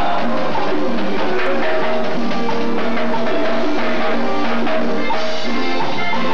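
Live band music led by electronic keyboards playing held melodic lines, over a steady percussion beat.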